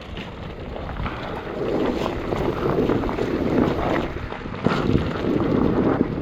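Wind buffeting the microphone, a loud rushing noise that swells about a second and a half in and keeps gusting.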